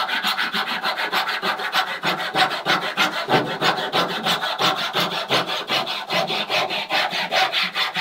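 Handsaw cutting through the end of a wooden ribband, the blade guided flat along the back of the transom, in quick, even back-and-forth strokes, several a second.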